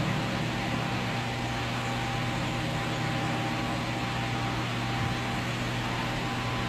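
Steady low hum with an even hiss, unchanging throughout, like a room's air conditioning or fan running.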